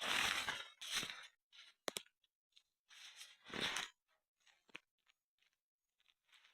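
Footsteps crunching on forest ground, a few uneven steps about a second apart, with a short sharp snap about two seconds in.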